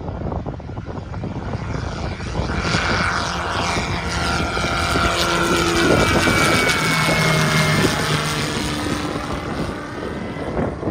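Zenith 750 light aircraft with a Viking 130 engine flying low past and climbing away. The engine-and-propeller drone swells from about two seconds in and its pitch drops as the plane passes overhead.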